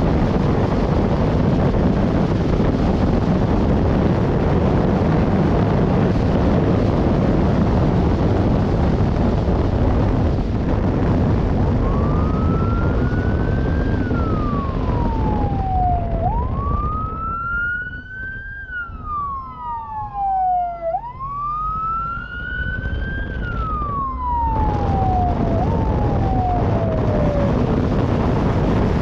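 A police siren wailing in slow rising and falling sweeps for about fifteen seconds, starting near the middle, over steady wind rushing on the microphone from riding at speed. The wind noise drops away for several seconds while the siren sounds.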